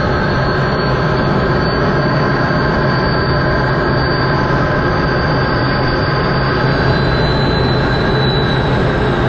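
Steady in-flight aircraft noise, heard from on board: a constant engine drone with a high, thin whine that dips slightly in pitch near the end.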